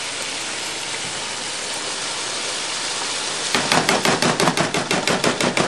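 Tomato sauce sizzling as it is poured from a can into a hot pan of sautéed vegetables. About three and a half seconds in, a fast run of sharp crackles sets in and grows louder.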